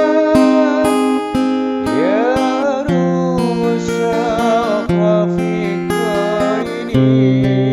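A man singing with vibrato over a strummed acoustic guitar.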